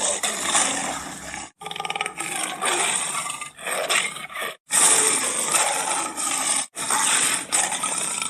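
Big-cat roaring and growling, edited and blended from two species' calls to stand for a hybrid cat's voice. It comes in four spliced stretches, each cut off abruptly by a moment of dead silence.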